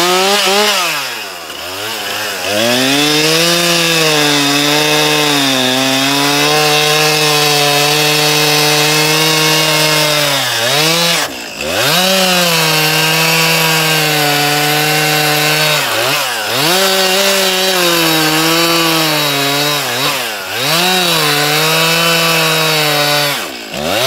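Stihl MS 261 C two-stroke chainsaw running at full throttle while cutting through logs, its engine held at a steady pitch under load in the cut. The revs dip and climb back several times as the saw comes out of one cut and goes into the next.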